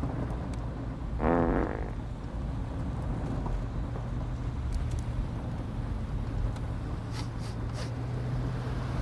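One pitched, buzzy fart about a second in, lasting under a second. It sits over the steady low hum of a car's interior.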